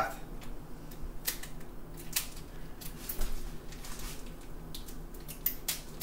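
Scissors snipping through a turkey's plastic wrapper, with the plastic crinkling: scattered short clicks and rustles.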